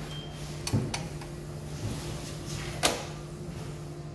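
Sharp metallic clicks and clacks from a steel band drum clamp being tightened with its hand tensioner around a plastic drum: a few separate clicks, the loudest near three seconds in. A steady low hum runs underneath.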